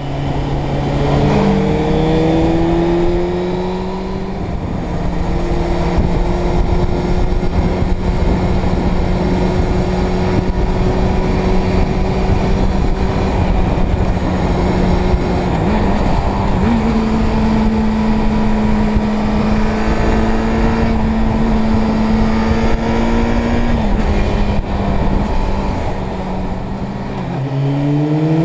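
Suzuki Bandit 600 N's inline-four engine running at steady cruising revs under heavy wind rush. The engine pitch steps up about sixteen seconds in and dips shortly before the end, then climbs as the bike accelerates at the very end.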